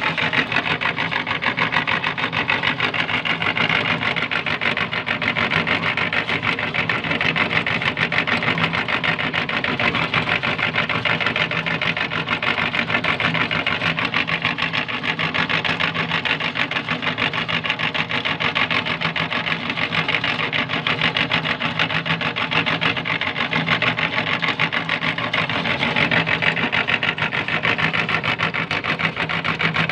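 Belt-driven meat grinder running steadily as it grinds falsa berries, a constant motor hum under a fast, even rattle.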